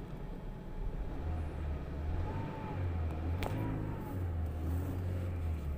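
A Toyota Vios's 1NR four-cylinder petrol engine running with a misfire, which the scanner places on cylinder 4. The fault moved there with a swapped ignition coil, so that coil is failing. A single sharp click sounds about three and a half seconds in.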